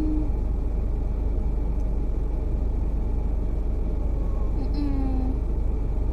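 Steady road and engine rumble inside a moving car, with a cat meowing from its carrier: one meow trailing off at the start and another short, slightly falling meow about five seconds in.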